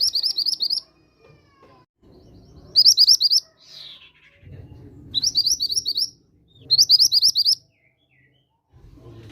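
Mantenan gunung song used as a lure: short bursts of rapid, high chirping notes, each burst under a second, four times with pauses between.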